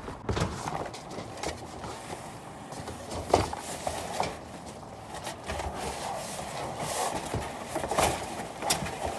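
Scattered knocks, scrapes and rustles of boxes and hardware being shifted about inside a dumpster, with a sharper knock about three seconds in.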